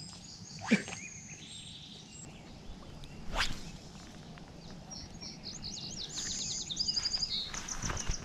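Songbirds chirping outdoors, with a fast run of high trilled notes in the second half. A short, sharp sound sliding down in pitch comes about a second in, the loudest moment, and a few soft knocks come later.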